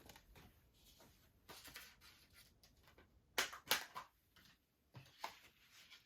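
Plastic Blu-ray case and discs being handled: scattered light clicks and rustles, with two sharper clicks a little past halfway.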